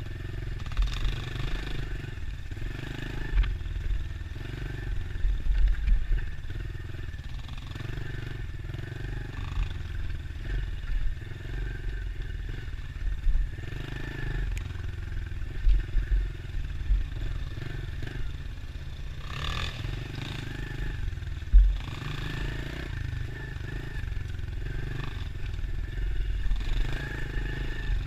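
Dirt bike engine ridden on a rough trail, the throttle opening and closing over and over, with clattering and a few heavy thumps, the loudest about three-quarters of the way through.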